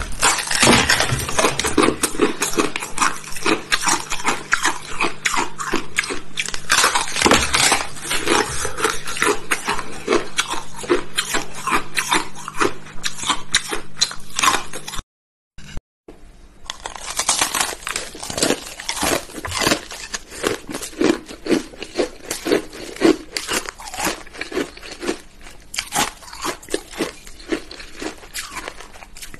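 Hard ice being bitten and chewed close to the mouth: many sharp crunches in quick succession. The sound cuts out briefly about halfway through, then the crunching resumes.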